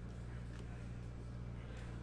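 Low steady electrical hum with a few faint, soft clicks of trading cards being handled.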